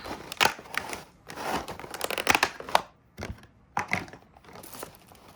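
Plastic packaging crinkling and tearing in irregular rustles and sharp crackles as a vinyl toy figure is pulled out of its plastic wrap.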